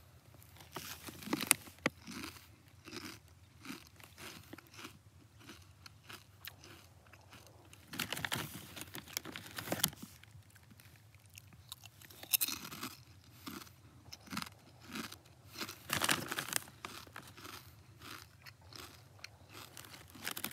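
Kettle Brand pepperoncini potato chips crunching as a person chews them, mouthful after mouthful, with a few louder crunches where fresh chips are bitten.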